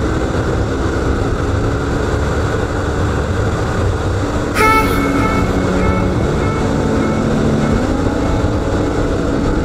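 Wind rush on the microphone and a Kawasaki Ninja 400's parallel-twin engine cruising at speed. About halfway through, background music comes in over it.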